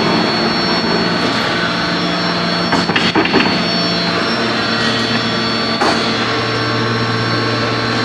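Forge-shop machinery noise from a medium-frequency induction heating machine at work: a loud, steady drone with a low hum and a high steady whine, broken by a few metal clanks about three seconds in and again near six seconds.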